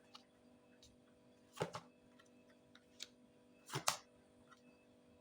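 Tarot cards being handled on a table: a few soft taps and clicks, a pair about a second and a half in, one at about three seconds and a short cluster just before four seconds, over a faint steady hum.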